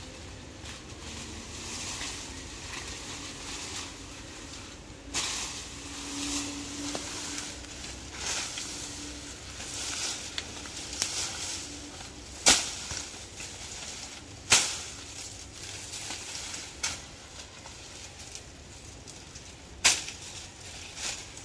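Dry, dead banana leaves rustling and crackling as they are pulled and bundled by hand, with a few sharp cracks as the dried leaf stalks break.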